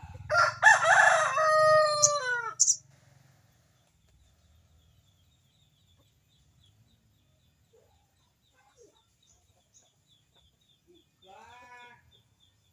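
A rooster crowing once loudly for about two and a half seconds, the call falling in pitch at the end. A second, fainter and shorter crow follows near the end.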